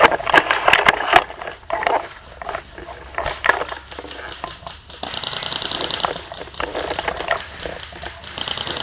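Airsoft gunfire: a quick run of sharp clicks and cracks in the first second or so, then scattered single shots. About halfway there is a rapid high rattle lasting roughly two seconds, and it comes back near the end.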